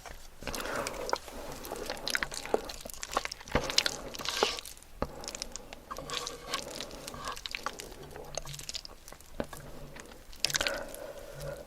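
Close-miked eating sounds: a person chewing, with irregular crunchy bites and wet mouth clicks.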